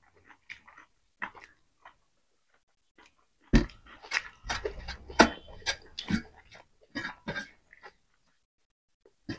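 Close-miked eating by hand: wet chewing, lip smacks and mouth clicks, with fingers working rice and pork on metal plates. There are a few sparse clicks at first, then a dense, louder run of chewing noises from about a third of the way in, then a pause.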